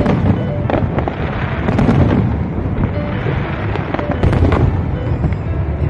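Fireworks display: aerial shells bursting in a continuous dense rumble, with sharp bangs standing out every second or so.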